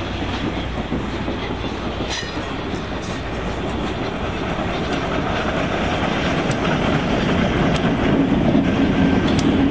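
HO scale model freight cars rolling along the track: a steady rumble with scattered wheel clicks, getting louder from about halfway through as the cars come closer.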